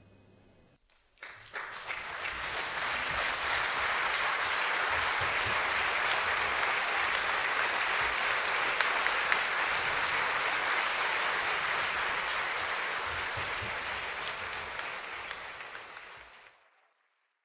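Concert audience applauding. The applause breaks out about a second in as the final chord of the orchestra and choir dies away, holds steady, and fades out near the end.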